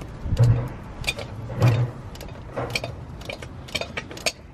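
Socket ratchet clicking irregularly as it works loose the top bolt of a Ford Focus ST's downpipe. Two louder, low sounds come about half a second and a second and a half in.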